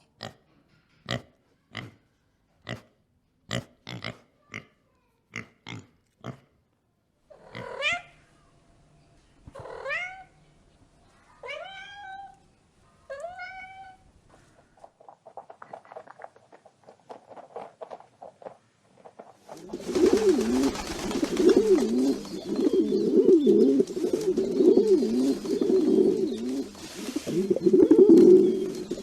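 A run of animal calls. First about a dozen short, sharp calls in quick succession. Then four rising calls about a second and a half apart, and a soft rapid rattle. From about two-thirds of the way in comes a loud wavering call that goes up and down in pitch.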